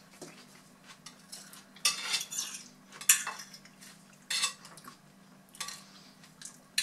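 Knife and fork scraping and clinking on plates as food is cut and picked up, in several short strokes, the loudest about three seconds in. A faint steady low hum runs underneath.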